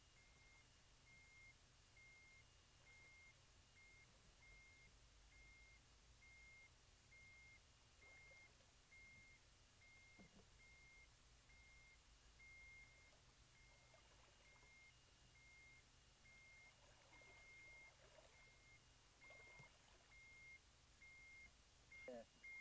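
Backpack electrofishing unit's warning beeper: a faint, high beep repeating about twice a second. It signals that the anode is live and current is flowing into the water.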